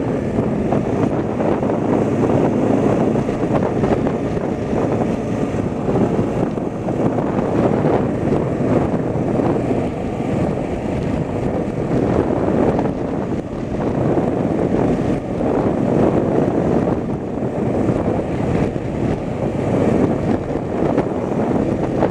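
Steady, low rushing noise of wind buffeting the microphone, rising and falling slightly throughout.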